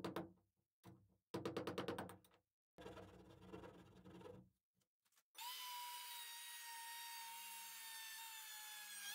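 Quick scraping strokes of a hand tool working into the wood of an old door, then, about five seconds in, a small corded rotary tool starts and runs with a steady high whine.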